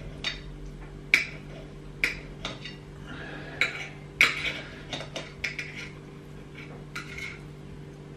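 Kitchen knife tapping and scraping on a ceramic plate as raw beef is cut into cubes: irregular sharp clicks about once or twice a second, the loudest about a second in and about four seconds in, with a few short scrapes between them.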